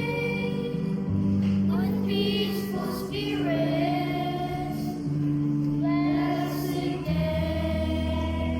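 Children's choir singing a hymn in long held notes over a steady low accompaniment.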